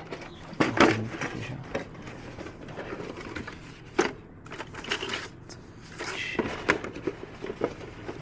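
Irregular clicks and knocks of small objects being handled and set down, the sharpest about a second in and again about four seconds in.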